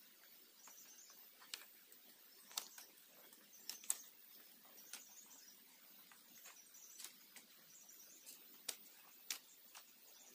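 Faint jungle ambience: small high chirping calls repeating every second or so, and a scattering of sharp clicks and taps, the loudest about four seconds in.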